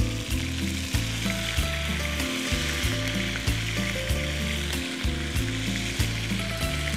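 Oil sizzling steadily in a nonstick frying pan as ginger-garlic paste fries with garlic cloves, cumin and mustard seeds for a tempering, stirred with a spatula.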